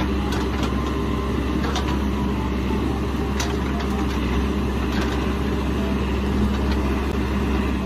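Caterpillar 416F backhoe loader's diesel engine running steadily under load while it digs with the backhoe arm.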